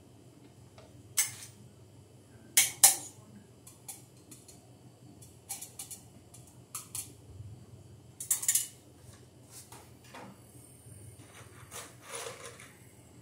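Sharp metallic clinks and knocks of a hand tool working on a steel electrical box, coming irregularly, the loudest a quick pair about two and a half seconds in.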